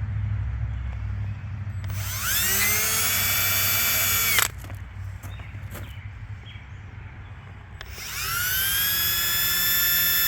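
Electric drill run twice in short bursts. Each time the motor whines up to speed, holds a steady pitch for a couple of seconds, and the first run stops abruptly. The second run starts near the end.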